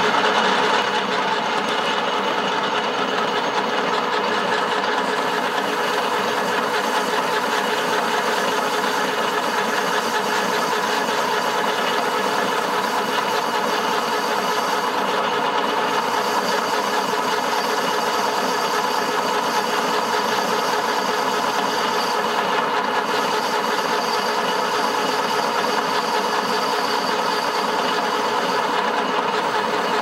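Small metal lathe running steadily with an even motor whine while a phosphor bronze bush is parted off the bar.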